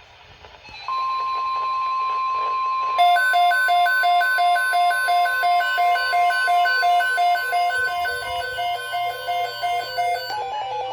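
NOAA Weather Radio warning alarm tone, a steady 1050 Hz single tone that starts about a second in and signals an emergency alert about to be read. From about three seconds in a weather radio receiver's alarm adds a pulsing two-pitch beep, about three beeps a second, which changes its pattern near the end.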